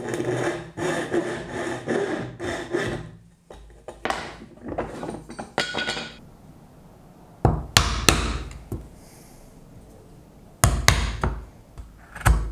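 Hand tools working hardwood: about three seconds of rapid scraping strokes and a few more shortly after, then sharp knocks on the wood, two around the middle, two more later and one near the end.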